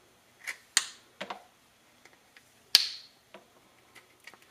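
Thin cast-silicone strands snapping as they are pulled off the perimeter of a silicone mask still in its mold: a handful of short, sharp snaps at uneven intervals, the loudest a little under three seconds in.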